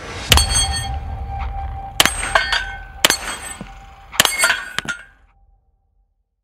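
Four loud metallic clangs, each ringing on briefly in several tones and followed by fainter clinks, with a deep boom under the first.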